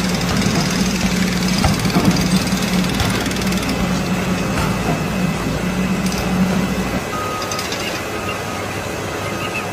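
A machine or vehicle engine running with a steady low hum and rumble that stops about seven seconds in, followed by short repeated beeps.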